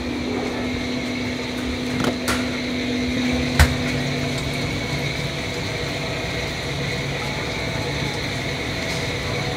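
Steady hum and hiss of a busy restaurant kitchen's fans and gas burners, with a couple of light clicks about two seconds in and a sharper knock about three and a half seconds in.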